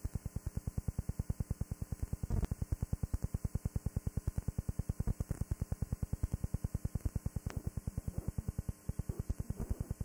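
Rapid, even electronic pulsing buzz of about nine pulses a second, with a couple of sharp clicks, playing off a blank stretch of VHS tape.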